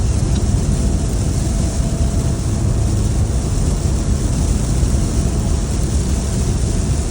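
Heavy rainstorm: a steady rush of pouring rain over a deep, continuous rumble.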